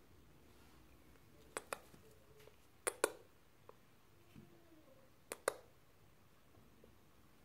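Three pairs of sharp clicks, each pair a fraction of a second apart, over quiet room tone, with a brief faint cat chirp about four seconds in.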